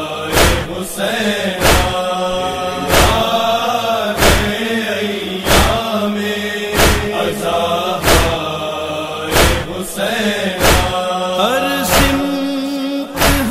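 Voices chanting a Shia Muharram noha lamenting Husain in long held, wavering notes, over a sharp beat about every 1.3 seconds.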